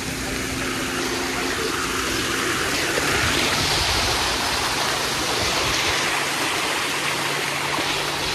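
Running, splashing water from a pool's water slides and water features: a steady rushing hiss that swells about three seconds in, with a faint low hum beneath it in the second half.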